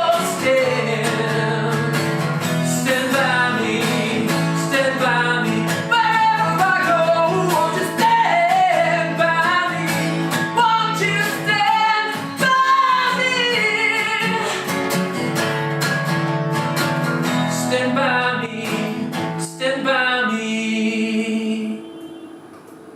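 A solo singer with acoustic guitar accompaniment. About twenty seconds in, the singing ends and the last guitar chord rings and fades away.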